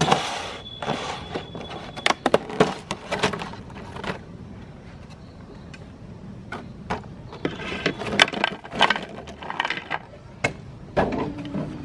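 Repeated sharp cracking and crackling in two spells, like crunchy cookies snapping and being handled. About a second before the end, an electric meat grinder's motor starts with a steady hum.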